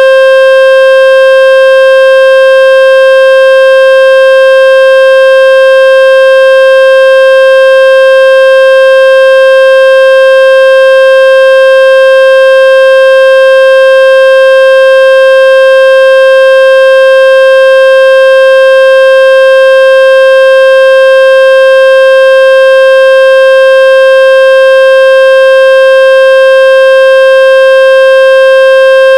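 Loud, steady electronic tone with a buzzy edge from its overtones, held at one unchanging pitch: the speaker-cleaning tone played to shake water out of a phone speaker or earphones.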